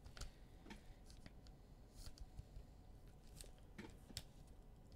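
Near silence with scattered faint clicks and ticks, the sound of trading cards being handled and slid through by hand.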